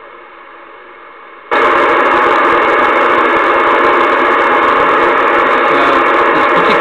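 Noise hissing from a Realistic DX-394 shortwave receiver tuned to 5450 kHz. It is fairly quiet at first on the indoor loop antenna, then about a second and a half in it jumps suddenly much louder as the receiver is switched to the outdoor active vertical antenna. The loud noise is local interference that completely drowns out the weak RAF weather station.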